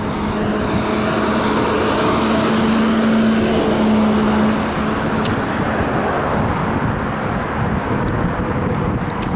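A motor vehicle's engine running close by over road noise, its steady hum swelling towards the middle and easing off slightly afterwards.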